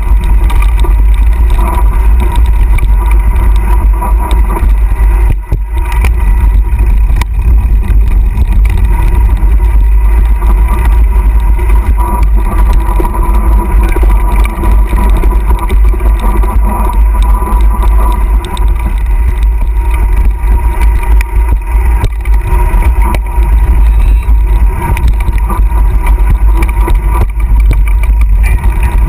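Wind buffeting on an action camera's microphone during a fast mountain-bike descent on a dirt trail, a steady loud low rumble, with the bike's rattle and small knocks over the bumps throughout.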